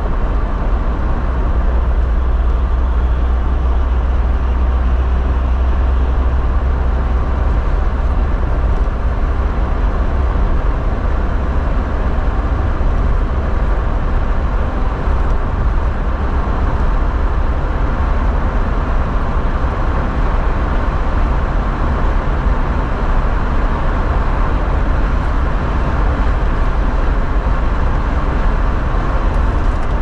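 Car driving, heard from inside the cabin: steady low engine drone and tyre rumble, even throughout.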